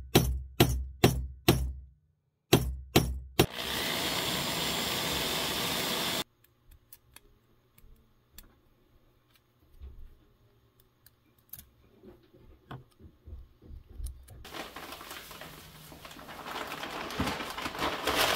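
Workshop montage: sharp knocks in two quick bursts, about five then three, on a brass rod held in a bench vise. Then about three seconds of steady machine-like noise that cuts off abruptly, and light clicks of small parts being handled. Near the end comes a swelling rush of dry sand poured from a bag into a plastic bucket.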